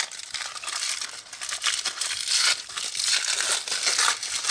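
Thin white paper wrapping crinkling as it is pulled and peeled off a roll of washi tape by hand.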